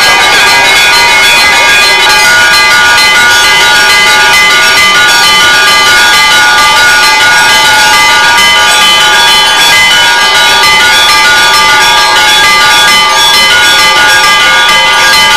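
Church bells ringing continuously and loudly, many steady overlapping tones.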